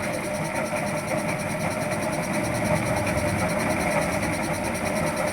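An engine or motor running steadily, with a constant hum and a fast, even pulse.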